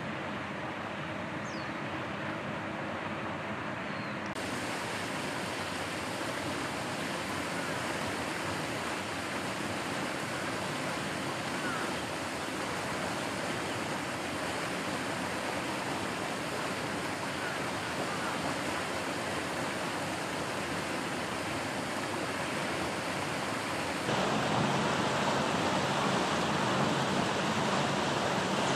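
Steady rushing noise, changing abruptly about four seconds in and growing louder near the end.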